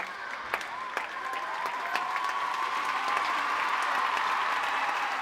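Theatre audience applauding a curtain call, swelling after about a second, with a few sharp claps close by.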